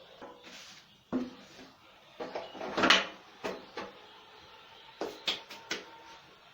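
A series of irregular knocks and clicks, like wood or metal being handled. The loudest comes about three seconds in.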